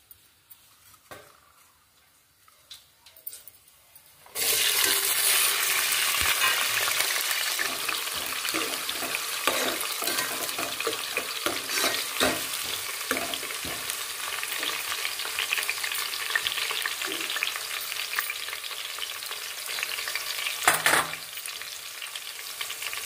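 Sliced onions and green chillies frying in hot oil in a metal pot: a sudden loud sizzle starts about four seconds in and carries on as they cook, with a spoon scraping and clinking against the pot as they are stirred. Before the sizzle there are only a few light clinks.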